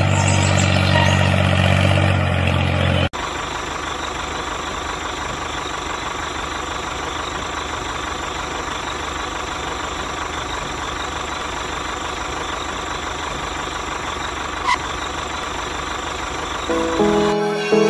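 A small motor running steadily with an even mechanical whirr. It follows a different low, steady hum that cuts off abruptly about three seconds in.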